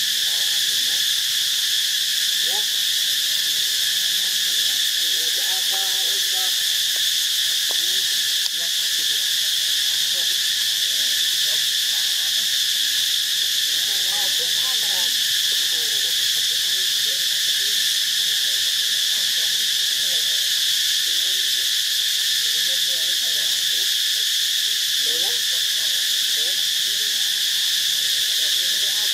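Steady high-pitched drone of a forest insect chorus, with faint voice-like calls underneath a few times.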